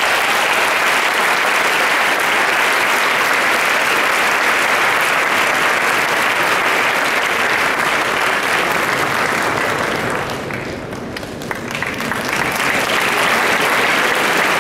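Audience applauding steadily, the clapping easing slightly about ten seconds in and then picking up again.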